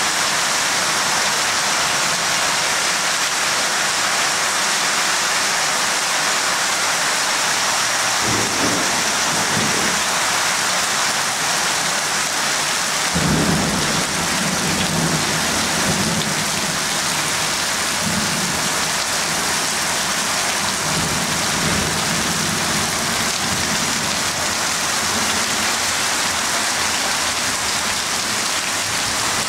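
Hailstorm with heavy rain pelting down in a loud, steady hiss. Low rumbling comes in briefly about a third of the way through, then again from a little before halfway, and carries on.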